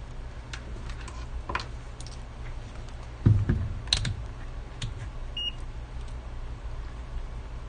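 Light scattered clicks and taps of small tools on a circuit board, with a dull thump about three seconds in and a very short high beep about halfway through, over a steady low hum.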